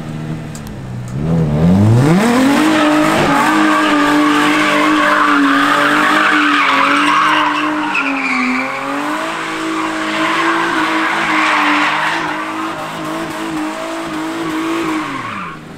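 Nissan 350Z's V6 revving up hard about two seconds in and held at high revs while its rear tyres spin and squeal through a long slide or donut, making tyre smoke. Revs and tyre squeal drop away near the end.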